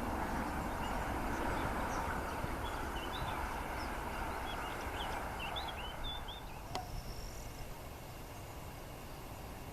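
Airbus A320neo jet noise fading into the distance after take-off, with small birds chirping over it. About two-thirds of the way through, a click and a drop to a quieter steady background.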